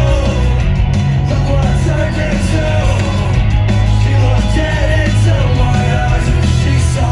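Loud live rock music from a festival stage's PA system, heard from within the crowd: a sung vocal line over heavy, steady bass.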